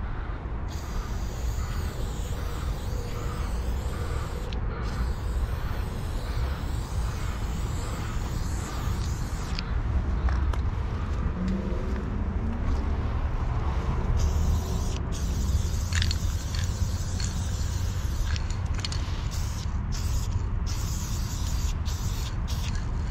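Aerosol spray paint can hissing in bursts of varying length, with short breaks between them and more frequent bursts in the second half, over a steady low rumble.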